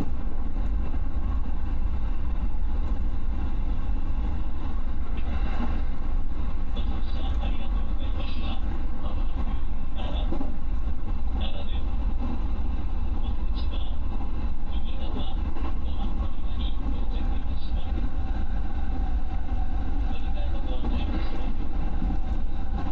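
Electric commuter train running along the track, heard from inside the driver's cab: a steady, loud low rumble of wheels on rail, with short higher-pitched patches of noise every few seconds.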